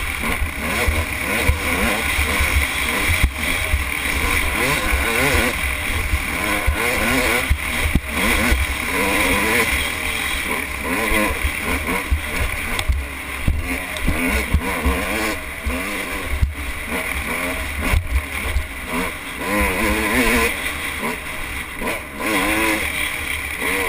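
Dirt bike engine revving up and down as the bike is ridden fast over a sandy trail, under a heavy low rumble of wind on the microphone and scattered knocks from the bumps.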